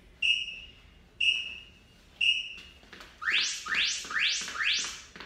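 Workout interval timer counting down: three short high beeps a second apart, then four quick rising electronic sweeps signalling the start of a Tabata work interval.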